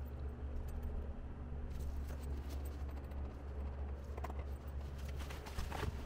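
Steady low hum of the wood kiln's dehumidifier and fan running, with a few faint knocks as the insulated kiln door is handled and pulled open.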